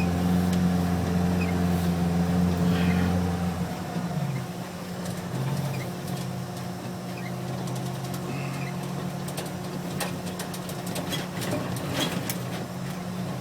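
Postal delivery truck's engine working hard as it pushes through deep snow, then easing off about four seconds in to a lower, quieter steady running note. A few faint clicks come near the end.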